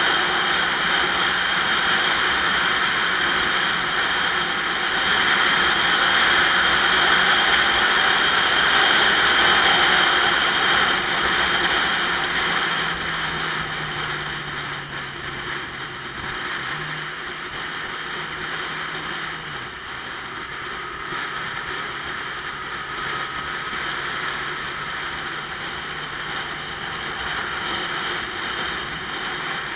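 Wind rushing over a motorcycle-mounted camera at road speed, with the motorcycle's engine running steadily underneath. The rush is loudest in the first dozen seconds and eases off after that.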